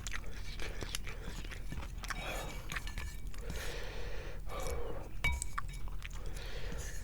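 Close-miked eating of spicy instant noodle soup: chewing with many small wet clicks, and now and then a light clink of a utensil.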